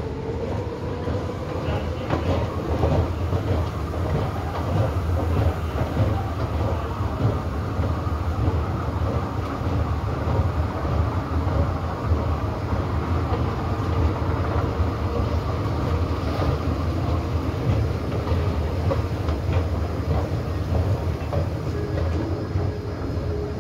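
Steady rumble of an underground metro station, with an electric train's motor whine rising in pitch over the first few seconds.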